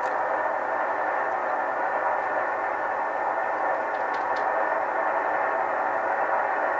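Heljan O gauge Class 37 model locomotive's Zimo sound decoder playing a recorded Class 37 diesel engine through the model's small onboard speaker as it runs slowly. The engine sound is steady and thin, with little deep bass.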